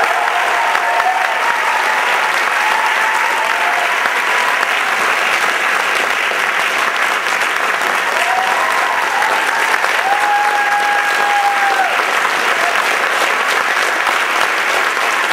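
A large audience applauding steadily in a hall, with a few long cheers rising over the clapping.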